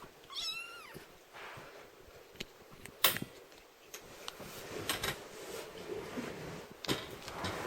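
A kitten gives one short, high mew that rises then falls, near the start. About three seconds in comes a sharp knock, the loudest sound, with softer knocks and rustling around it.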